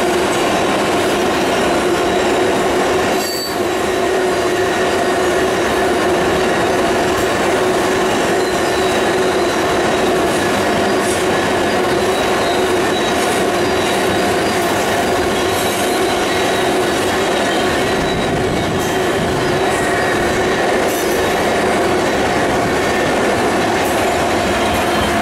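Loaded tank cars of a freight train rolling past with steady wheel squeal: several held tones over the rumble of the wheels. Now and then a faint click comes as wheels cross rail joints.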